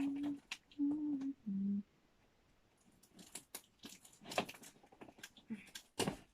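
Three short, steady low notes in the first two seconds, then scattered clicks and rustles of a cardboard package being handled and opened, with a sharper click near the end.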